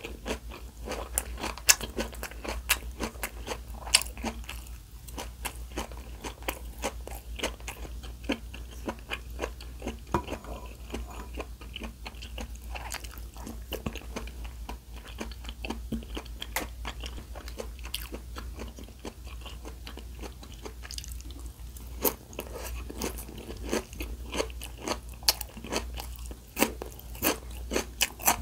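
Close-miked eating: a person biting and chewing food, with many irregular sharp crunches, a few of them much louder than the rest.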